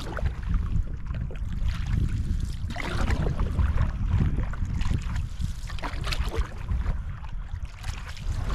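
Canoe paddle strokes splashing in river water every second or two, under a low rumble of wind buffeting the microphone.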